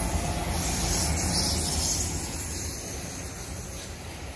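Freight train rolling past on the rails, a steady rumble that fades away over the second half.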